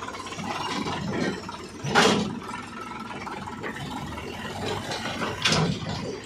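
Diesel engine of a JCB 3DX backhoe loader running steadily, with two loud knocks, one about two seconds in and one near the end.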